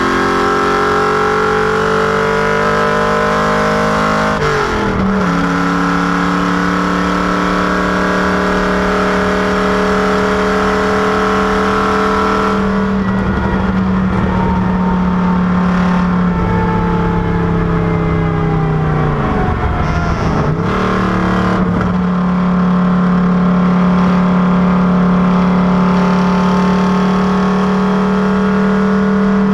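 FFR Cobra Daytona Coupé replica's V8 engine running hard on a racetrack at a steady, unbroken loudness. Its pitch holds level for long stretches, drops suddenly a few seconds in, breaks again near the middle, and dips and climbs back about two thirds of the way through.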